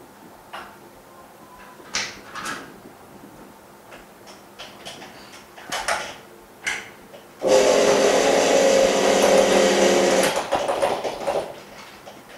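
A few light clicks and knocks of parts being handled, then a fully automatic polarizer film laminating machine running loudly for about three seconds, a steady mechanical hum with hiss, before it winds down.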